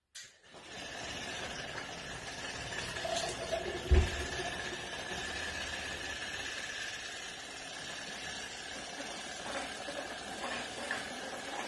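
Electric drill motor starting up and running steadily with a thin steady whine, driving a small centrifugal pump that pumps water. A single thump about four seconds in.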